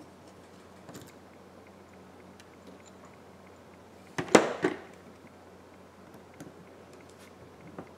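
Faint clicks and taps of small repair tools handled around an opened iPhone 11, with one short louder clatter of two or three quick knocks about four seconds in.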